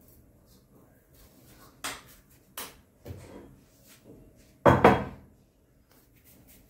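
Kitchen handling noises: a few light knocks and clicks, then one loud thud about five seconds in.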